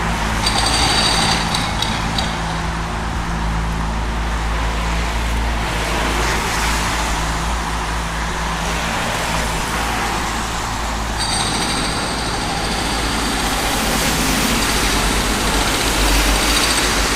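Engine of a machine making holes in the ground, running steadily with a low hum over a steady hiss. A high whine comes in briefly just after the start and returns from about eleven seconds in.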